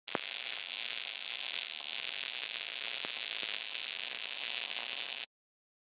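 Short-circuit MIG welding arc on eighth-inch carbon steel: a steady sizzling hiss with a few faint clicks, cutting off suddenly about five seconds in.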